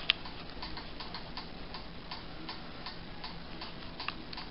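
Soft, steady ticking, about two ticks a second, with one sharp, louder click just after the start.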